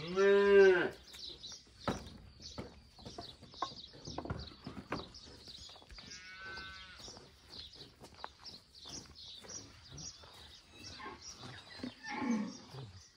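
Cattle calling: a loud, high bawl in the first second, typical of a calf, a fainter call around six seconds in, and a lower, falling call near the end. Scattered clicks and knocks, with faint high chirping.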